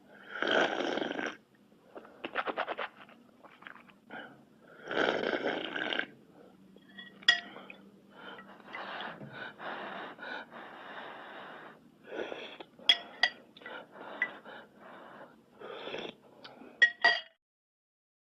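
A string of separate eating-type sound effects: short breathy mouth noises such as gasps and wheezy sucking, with a few sharp clinks between them.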